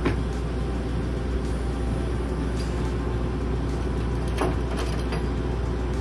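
The engine of the heavy machine lifting a concrete cesspool ring on chains, running steadily with a low rumble, with a few sharp clinks, one at the start and another about four and a half seconds in.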